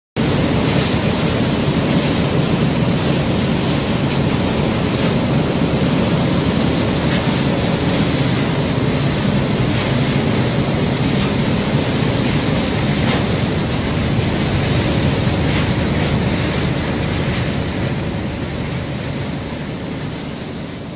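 Wood-chip oscillating screens and their conveyors running, with chips pouring over the metal screen decks: a loud, steady, deep mechanical noise with faint scattered ticks. It fades out near the end.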